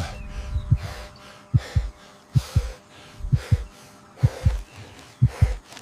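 A heartbeat: pairs of low thumps repeating a little under a second apart. Under it comes heavy, strained breathing from a man hauling himself up a tree trunk.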